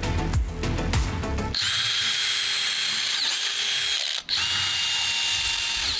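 Background music for about the first second and a half, then a power tool's electric motor whining steadily at a high pitch, broken off for an instant a little past halfway.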